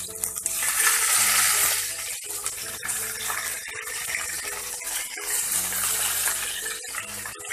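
Green bell pepper pieces sizzling in hot oil in a frying pan. The sizzle is loudest about a second in, just after the batch goes in, then settles to a steady frying sizzle.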